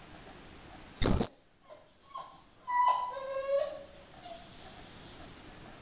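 A loud, sharp bark about a second in, then a briefer pitched call near three seconds that drops in pitch.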